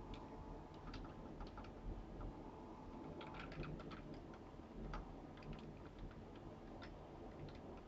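Faint computer keyboard typing: irregular key clicks with short pauses as a phrase is typed.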